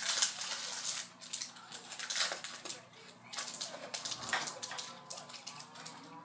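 Hockey card packs being handled: foil wrappers crinkling and cards rustling and sliding against each other in a run of irregular bursts.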